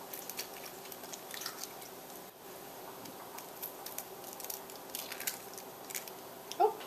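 Eggs being cracked by hand into a glass bowl: faint clicks of shell breaking, a few sharper taps, and the soft wet slop of the egg dropping in.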